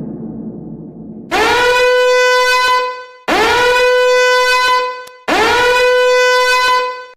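Meme horn sound effect: three long, identical horn blasts, each swooping up at the start and then holding one steady, bright tone. Before the first blast, the fading tail of an earlier boom dies away.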